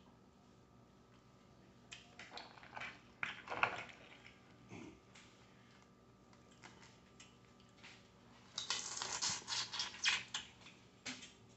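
Boiled crawfish being eaten by hand: scattered crackling clicks of shells being broken and peeled, with mouth sounds of eating, and a denser run of crackling and smacking near the end.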